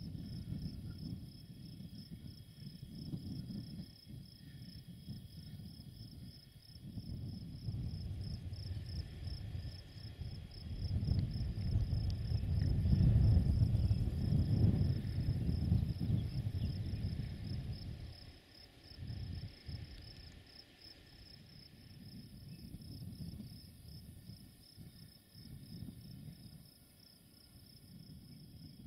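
Crickets chirring steadily in a fast, even, high pulse. Under them runs a low, uneven rumble that swells to its loudest about halfway through and then falls away.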